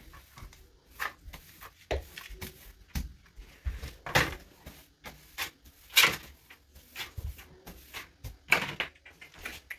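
Irregular knocks and bumps of objects being handled and set down, roughly one every second or so.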